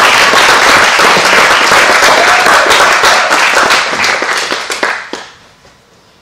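Audience applauding, loud and dense at first, then thinning to scattered claps and dying away about five seconds in.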